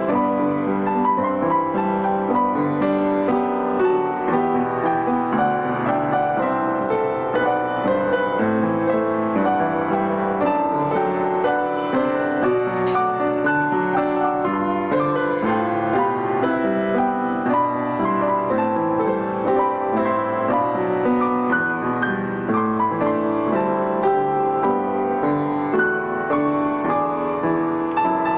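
Piano music played without pause, a flowing run of chords and melody notes.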